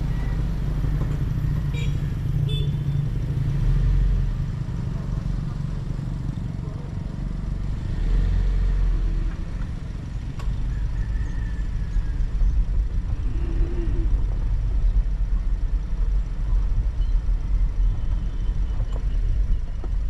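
A vehicle on the move along a rough road: a low, uneven rumble of engine and road noise that turns choppier in the second half.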